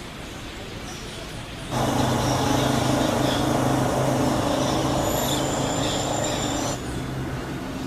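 A motor running steadily with a low hum. It cuts in suddenly about two seconds in and drops somewhat in level near the end.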